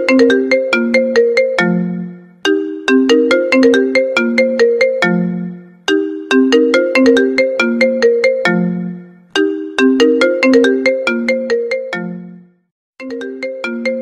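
iPhone ringtone playing: a short melodic phrase of struck, quickly fading notes, repeating about every three and a half seconds. There is a brief break about twelve and a half seconds in before the phrase starts again.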